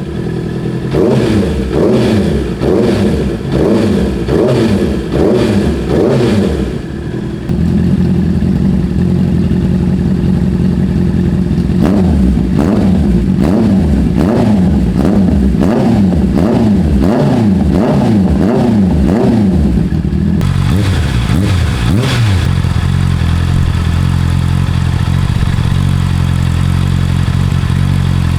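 Honda CBR650R inline-four engine revved again and again in quick blips through an opened-up (gutted) exhaust, then running at a steady idle for the last several seconds.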